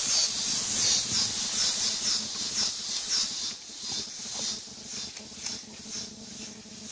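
Insects on the wooded riverbank buzzing in a loud, high hissing chorus that pulses about three times a second and eases somewhat after about four seconds.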